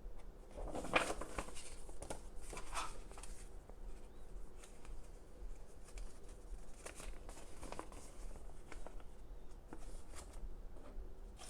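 Paper rustling as a folded instruction leaflet is handled and unfolded, in a few short bursts with light taps and clicks between.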